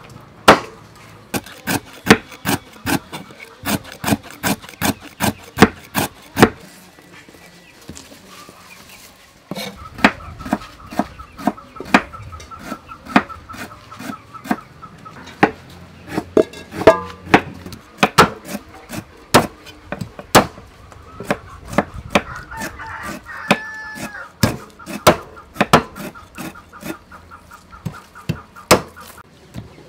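Cleaver chopping on a thick round wooden chopping block: sharp strikes about two a second, with a pause of a few seconds about a third of the way in.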